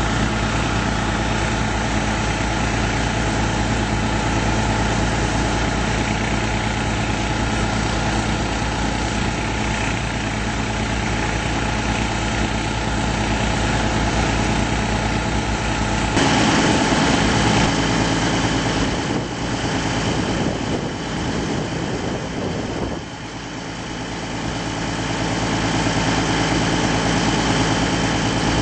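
Deutz turbo diesel engine of an Extec mobile tracked jaw crusher running steadily at idle. About halfway through, the sound changes abruptly to a rougher, noisier machine running sound.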